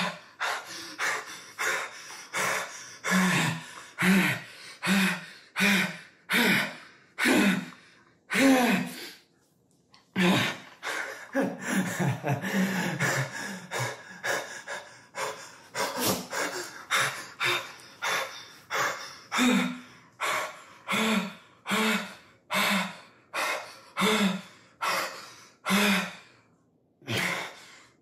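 A man gasping and sobbing in an emotional release, with sharp breaths coming about two a second, many of them voiced. About ten seconds in, a long cry falls in pitch before the rapid gasping takes up again.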